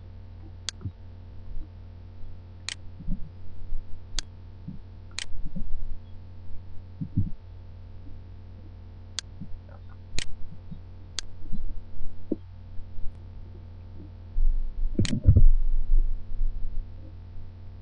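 Computer mouse clicking now and then, about eight sharp single clicks, over a steady low electrical hum. There are a few soft low thumps, the loudest about three seconds before the end.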